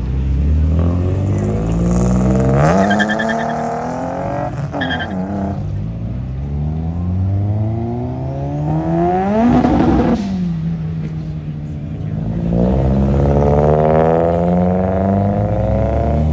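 Performance car engines revving and accelerating one after another as cars drive off, with a loud car passing close about ten seconds in, its engine note rising and then dropping as it goes by.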